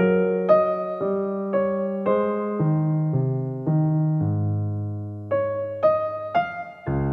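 Background music on an electric piano, a gentle melody with a new note or chord about every half second.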